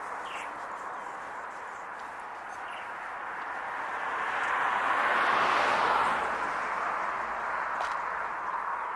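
Steady outdoor traffic noise, with one vehicle passing that swells to its loudest about five to six seconds in and then fades.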